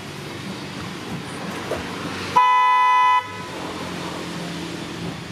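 A vehicle horn honks once: a single steady blast of just under a second that starts and stops abruptly. Steady background noise continues around it.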